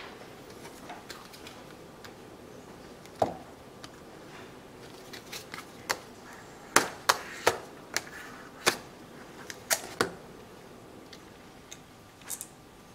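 Irregular sharp clicks and taps from plastic film and small tools being handled on a glass-topped desk, with a duller knock about three seconds in and a run of louder clicks in the middle.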